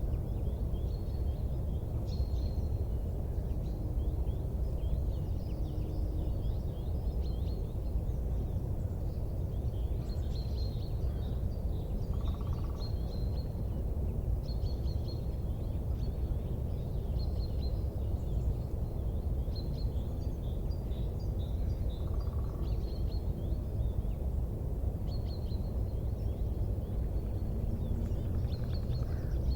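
Outdoor ambience: a steady low rumbling noise with small birds chirping again and again over it.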